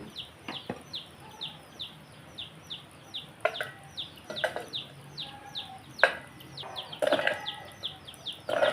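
Chickens calling: a steady run of short, falling, high peeps, about three or four a second, with some clucking near the end. Sharp knocks and clatter come a few times, the loudest about six seconds in.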